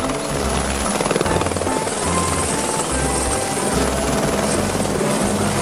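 Airbus AS350 Écureuil helicopter hovering and flying low, its rotor blades chopping rapidly and steadily, with background music and a bass line underneath.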